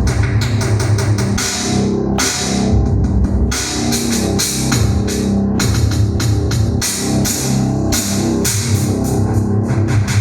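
Electronic keyboard playing a built-in rock drum pattern, steady cymbal and drum hits over sustained bass and chord tones.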